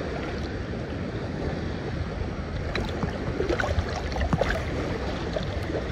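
Wind buffeting the microphone over small lake waves lapping around the wading angler, a steady rush, with a few short ticks and splashes about three to four seconds in as the bass is lifted from the water.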